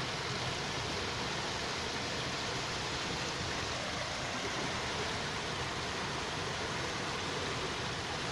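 Steady, even hiss with no distinct events or changes.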